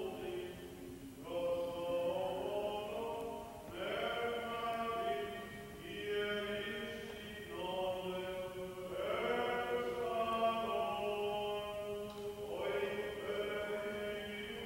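Greek Orthodox Byzantine chant: slow, sustained sung phrases a few seconds each, with pauses between them, over a steady held low note.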